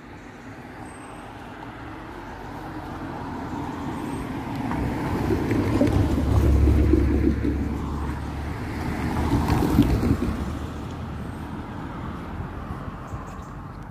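Road vehicles passing over the level crossing: one approaches and passes close with tyre and engine noise, loudest about six to seven seconds in, and a second passes about ten seconds in.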